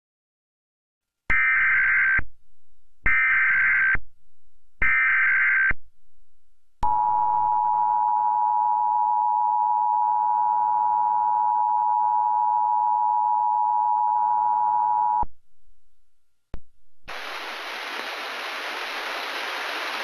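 Emergency Alert System header: three short screeching SAME data bursts, then the two-tone EAS attention signal held steady for about eight seconds. After a brief gap and a click, a steady hiss starts and runs on, ahead of the spoken test tornado warning.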